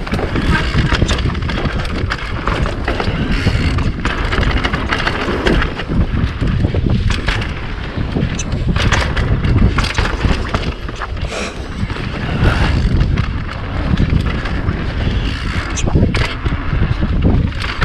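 Mountain bike rolling fast over a dirt trail: tyre noise and frame and chain rattle, with frequent clicks and knocks over bumps, and a steady wind rumble on the microphone.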